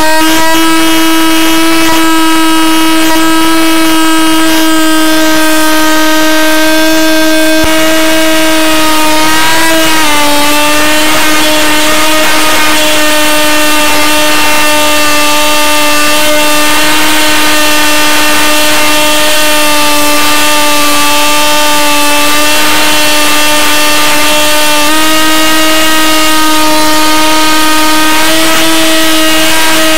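Motor and propeller of a radio-controlled Super Cub model plane, heard from on board as a loud, steady buzzing whine. The pitch drops about ten seconds in as the throttle is eased, then steps back up near the end as power is added.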